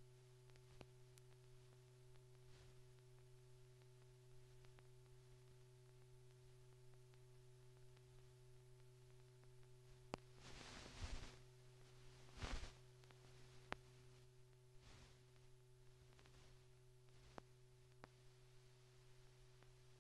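Near silence: a steady low hum, with scattered faint clicks and two brief bursts of crackle a little past halfway.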